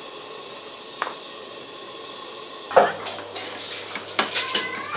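Kitchenware clattering against a large aluminium soup pot: a light click about a second in, a loud knock a little past halfway, then a run of lighter clinks and taps near the end.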